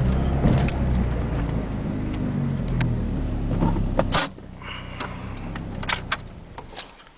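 1996 Dodge Neon's four-cylinder engine running as the car creeps into the garage, then switched off about four seconds in. A few light clicks follow near the end.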